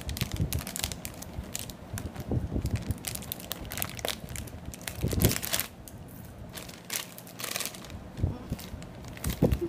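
Foil-lined plastic snack packet crinkling and crackling in the hands as it is handled and torn open, in irregular sharp crackles.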